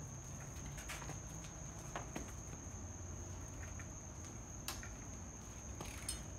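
Insects, crickets or similar, trilling steadily at one high pitch, with a few faint clicks.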